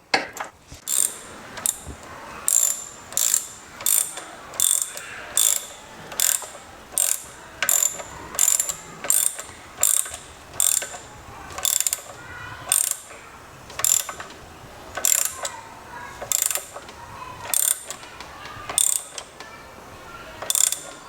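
Hand ratchet wrench clicking in steady repeated strokes, about three every two seconds, the strokes spacing out near the end.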